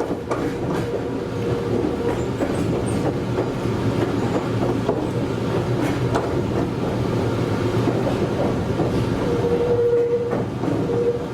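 Meitetsu 100 series electric commuter train running along the track, heard from the driver's cab: steady rumble of the running gear with scattered clicks of the wheels over rail joints. A steady whine sounds briefly at the start and again near the end.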